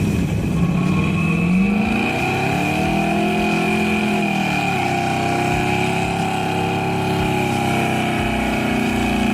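A car engine running and being revved: its pitch climbs over the first couple of seconds, dips back about halfway through, then holds steady at a raised speed.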